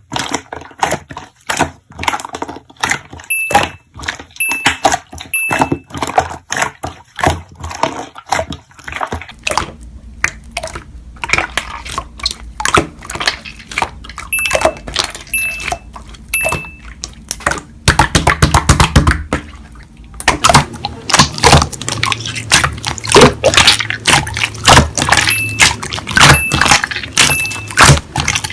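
Slime being squished and pressed by hand, with dense wet clicks, crackles and bubble pops. A set of three short, faint beeps recurs three times.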